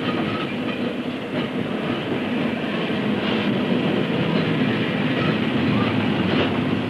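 Glasgow Corporation electric tram running along its rails: a steady rumble of wheels on track with a few faint clicks.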